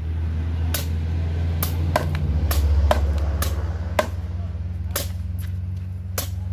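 Machetes chopping into firewood logs: a string of sharp, irregular blows, about a dozen in all, from two people cutting at once. A steady low hum runs underneath.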